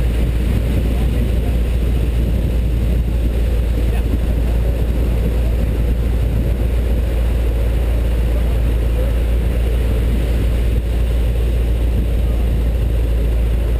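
Tow truck's engine idling steadily, a constant low hum.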